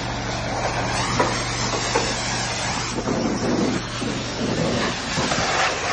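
Pressure washer running: a steady hiss of high-pressure spray on a truck's cab and wheel over a constant low drone, with uneven surges as the spray moves.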